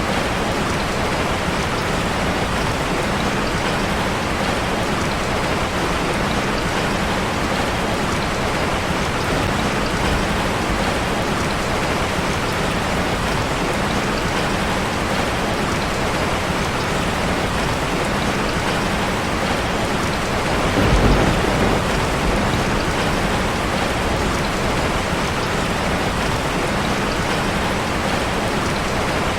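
Steady rain falling on a street, an even hiss with no letup. About two-thirds of the way through, a brief low rumble swells for a second or two and fades.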